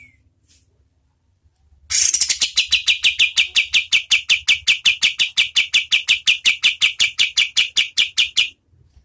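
Kapas tembak (crescent-chested babbler) giving its long 'tembakan' trill: a fast, even string of sharp, clipped notes, about six or seven a second, that starts about two seconds in and runs for over six seconds before cutting off. A faint single call comes just before it.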